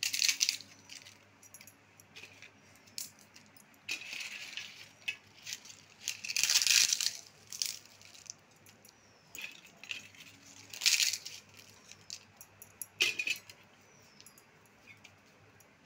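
Dry potato chips crackling and rustling as they are crushed by hand and scattered into bowls, in several short bursts with small clicks between them. The loudest burst comes about six seconds in.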